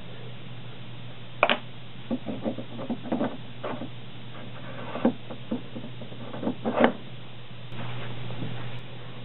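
Scattered light clicks and knocks as a steel lathe center is handled and seated in a tailstock ram, the sharpest about a second and a half in and near the end, over a steady low hum.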